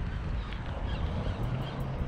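Wind buffeting the microphone, with faint short bird calls repeating in the background.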